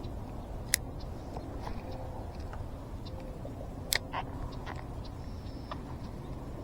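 Steady low outdoor background with a few sharp clicks: one about a second in and a quick double click about four seconds in, with fainter ticks between.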